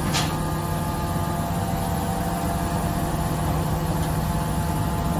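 XCMG QY25K5A truck crane's engine and hydraulics running steadily with a low, even hum. A short hiss comes just after the start.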